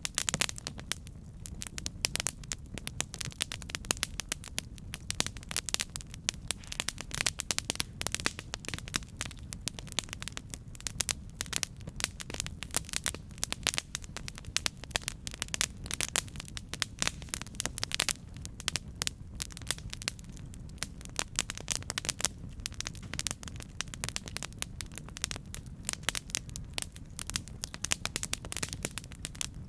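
Wood campfire crackling: a dense, irregular run of sharp pops and snaps over a steady low rumble of the burning fire.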